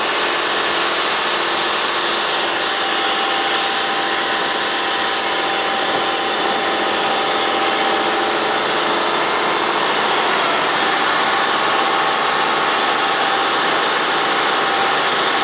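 A boat's engine running steadily under way, mixed with water rushing and breaking along the hull.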